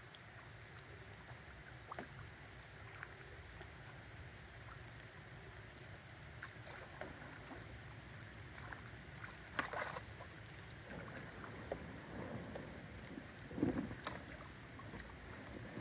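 Double-bladed paddle splashing and dripping as an inflatable raft is paddled in over a steady background hiss. The splashes get louder as the raft closes in, the loudest a little before the end when it reaches the shore.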